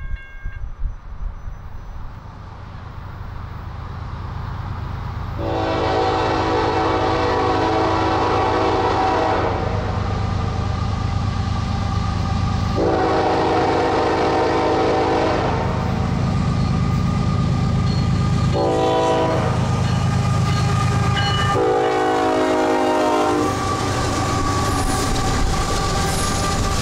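Air horn of a Norfolk Southern diesel freight's lead locomotive, the Interstate heritage unit, blowing the grade-crossing signal: long, long, short, long. Under it runs the steady low rumble of the diesel engines, and near the end the wheels click over the rail joints as the locomotives pass.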